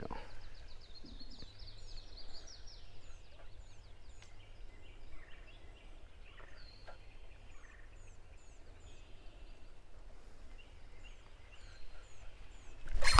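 A bird calling: a quick rattling run of notes, then a short falling high-pitched call repeated about every half second, over a low rumble. A sudden loud noise starts right at the end.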